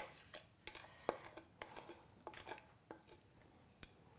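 Faint, irregular clicks and taps of a spoon scraping against a glass mixing bowl as egg-yolk mixture is scraped out into a saucepan.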